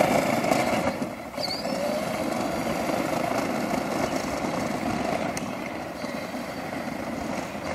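12-volt Power Wheels Stinger XS ride-on buggy driving on asphalt: its electric drive motors and gearboxes running and its wheels rolling. The sound fades gradually as the buggy moves away.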